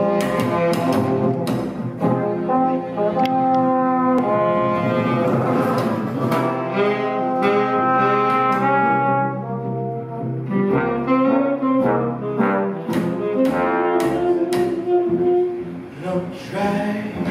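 Small jazz band playing live: trombone and saxophone carrying long melody notes over guitar and upright double bass.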